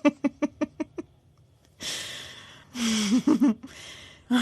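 A person laughing in a fast string of ha-ha pulses that fade out about a second in, then a breathy gasp for air and a short voiced laugh or sound.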